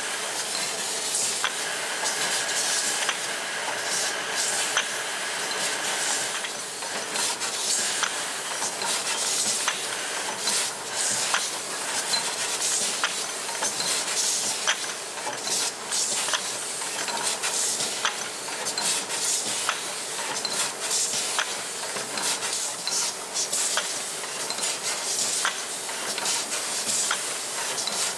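Ramune bottling line running: a steady hiss from the filling and sealing machinery, with frequent clinks of glass bottles knocking together as they move along the line. A faint high whine sounds for the first few seconds.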